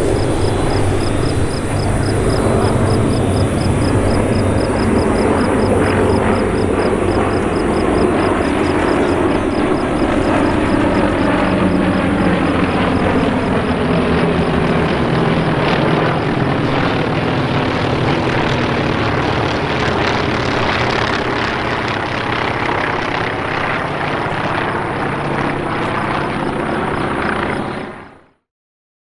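Formation of T-28 Trojan propeller trainers droning overhead on their radial engines, the engine note sliding lower as the planes break apart and pull away. The sound fades out near the end.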